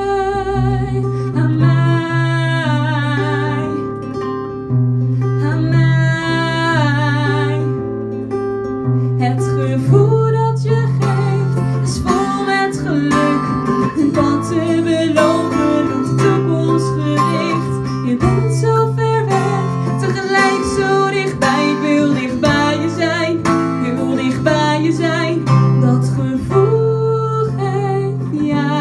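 Live female voice singing long held notes with a wavering vibrato over an acoustic guitar. From about ten seconds in the guitar strumming grows denser and the voice moves into shorter phrases.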